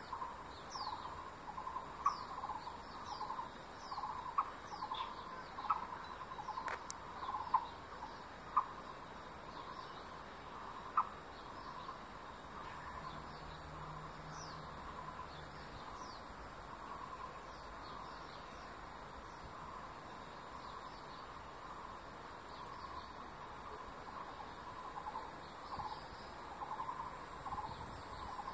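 Forest birds and insects: a steady high insect drone, with a bird repeating low notes over and over and small birds giving thin, falling chirps. Half a dozen sharper, louder notes stand out in the first ten seconds or so.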